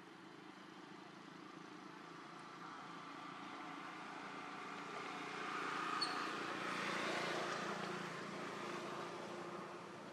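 A motor vehicle passing by: a steady engine and road noise that swells to its loudest about seven seconds in, then fades.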